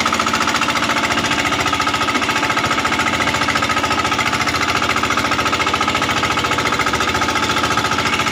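Small motorboat engine running steadily at cruising speed, a rapid, even pulsing.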